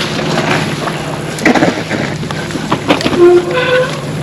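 Mountain bike rolling down a dirt trail: a steady rumble of tyres and wind on the microphone, with sharp rattles and knocks from the bike over rough ground.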